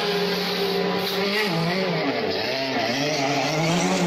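Mercedes-AMG DTM race car engine running in the pit lane, its pitch wavering up and down as it is revved.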